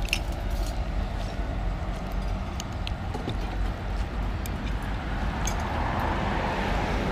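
Road traffic running steadily, with a passing vehicle swelling louder about six seconds in. A few light clicks sound near the start.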